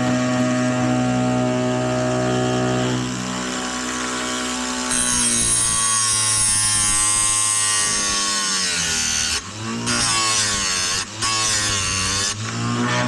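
Oregon electric chainsaw-chain sharpener: its motor hums steadily, then about five seconds in the grinding wheel meets the chain's cutter teeth with a rough grinding rasp. The motor's pitch sags and wavers under the load, with two short breaks near the end as the wheel is lifted between teeth.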